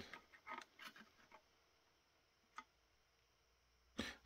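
Near silence, with faint scattered clicks and light taps from printed circuit boards being handled: several in the first second or so and a single click a little past halfway.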